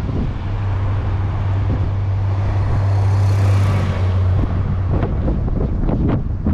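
Shuttle bus passing close by: a steady low engine hum and rush of air that build to a peak and cut off abruptly about four seconds in.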